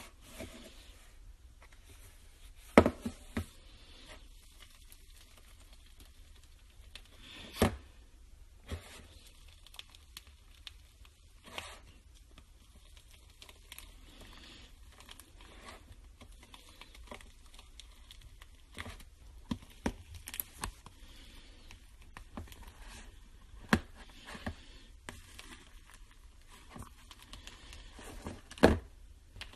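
Slime being squeezed and poked by hand: quiet handling noise broken by scattered sharp clicks and pops, the loudest a few seconds in and near the end.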